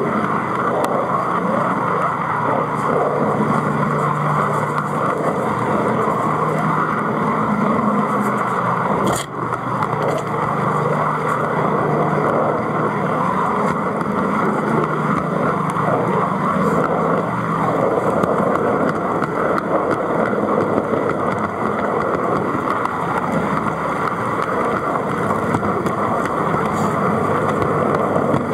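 Metal wheels of an O gauge model wagon and its propelling Ixion Hudswell Clarke locomotive rolling along the track, a steady running rumble. A single brief click with a momentary dip comes about nine seconds in.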